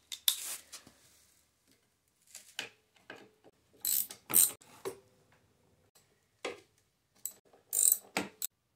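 Hand ratchet clicking in short, irregular bursts as the bolts holding the intake onto a push mower's engine are loosened, with small metal clicks and knocks of the tool against the bolts.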